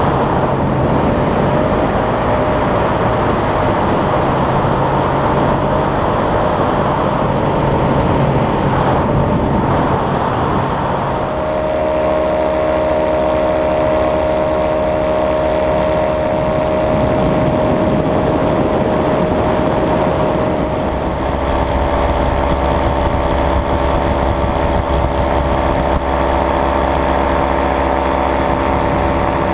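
Paratrike's Simonini two-stroke engine and propeller droning steadily in flight, with wind rushing over the microphone. The tone shifts abruptly about 11 and 21 seconds in, where the footage is cut.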